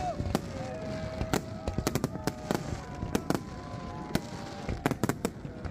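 Aerial fireworks display: firework shells bursting in a rapid, irregular run of sharp bangs, several a second.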